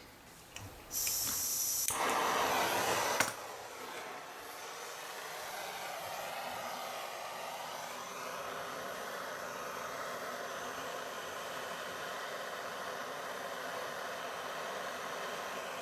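Gas blow lamp being lit for silver soldering: a short sharp hiss of gas about a second in, a louder burst of about a second and a half as it lights, then the flame burning with a steady hiss.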